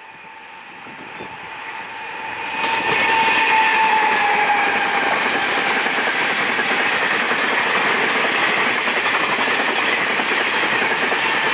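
Taiwan Railways E1000-class electric locomotive train passing through a station. Its noise builds as it approaches and turns loud about three seconds in, then holds as a steady rumble of wheels on rail with clickety-clack. A high steady whine sinks slightly in pitch as it goes by.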